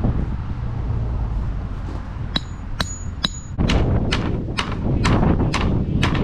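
Hammer blows: three sharp, ringing taps a little under half a second apart, then a steady run of about two heavier strikes a second, over a low rumble of wind and machinery.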